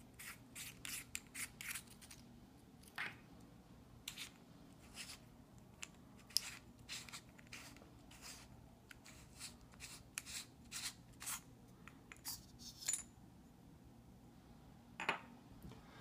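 Small clicks, scrapes and rubs from a cylindrical metal-tube power bank being twisted and worked open by hand, its battery cell with circuit board slid out of the tube. The clicks come in a quick run at the start, then scattered every second or so.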